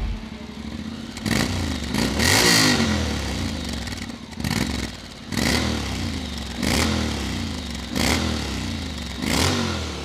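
Honda X-ADV 750's parallel-twin engine on its stock exhaust, idling and blipped through a series of quick throttle revs, roughly one a second, each rising and falling back to idle. Even stock it is already rumbling.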